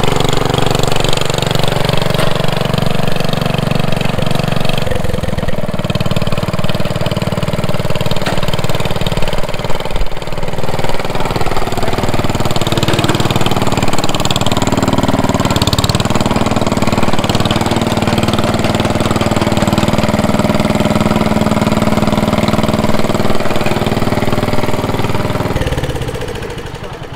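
International Harvester Cub Cadet Original lawn tractor's single-cylinder engine running steadily, just brought back to life after the auction; the sound dies away near the end.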